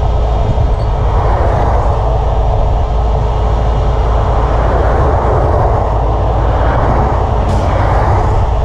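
Highway traffic passing close by at speed, swelling and fading as each vehicle goes past, over a steady low rumble. A short sharp knock near the end.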